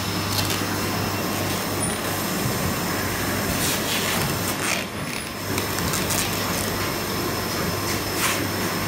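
An automated film-cutting machine running, with a steady low hum and machine noise. A few short hisses break in, about half a second in, near the middle (twice in quick succession) and again near the end.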